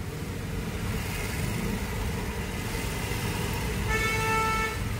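Steady street-traffic rumble. A vehicle horn sounds once, for just under a second, about four seconds in.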